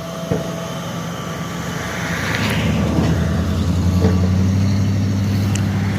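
A large engine runs with a steady low drone and grows louder about two seconds in.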